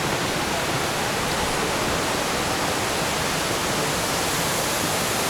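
Waterfall in full rainy-season flow: a loud, steady rush of falling water.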